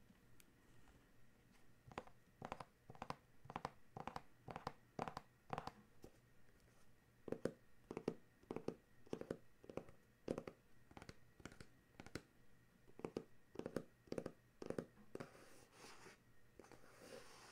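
Fingertips tapping on a black cardboard box, a steady run of soft taps about two a second, then fingernails scratching across the cardboard surface near the end.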